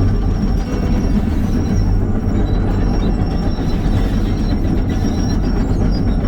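John Deere 210G excavator's diesel engine running steadily under load, with a thin high whine over it.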